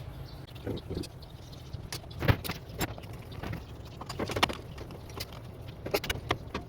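Metal hand tools clinking and knocking against engine parts in a series of irregular sharp clicks, the loudest about two seconds in, over a steady low hum.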